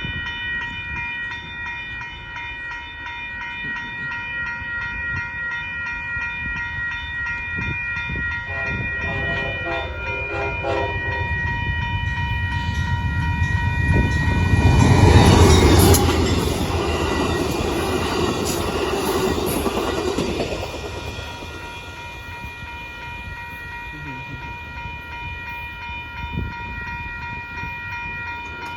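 Amtrak passenger train approaching and passing a road crossing while the crossing bell rings steadily. The horn sounds about 9 to 11 seconds in, the locomotive goes by loudest at about 15 seconds, and the cars rumble past until about 20 seconds before the train fades away.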